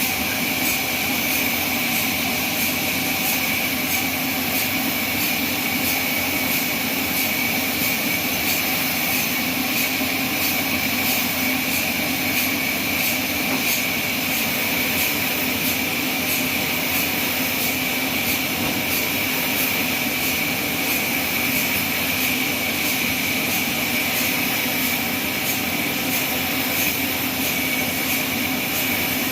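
Band sawmill running steadily, a constant high whine over a hiss with a low hum beneath.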